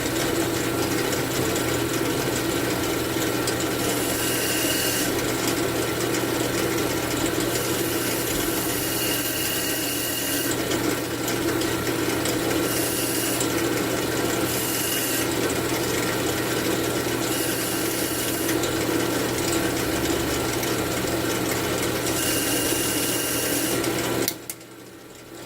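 Wood lathe running steadily while a turning tool cuts details into the spinning cherry wood, with repeated short passes of hissing, scraping cutting. The sound cuts off abruptly near the end.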